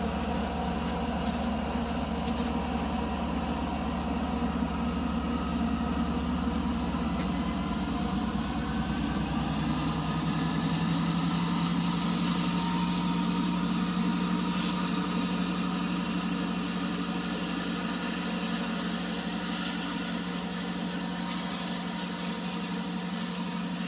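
Diesel locomotive 1326, an EMD F59PHI, running as it pushes the commuter train away from the platform. Its engine hum shifts around ten seconds in as it powers up, over a steady high whine that climbs in pitch a little before that.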